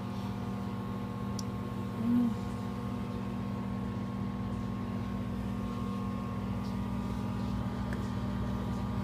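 Microwave oven running while it heats a slice of pizza: a steady electrical hum with a low drone from the magnetron and fan.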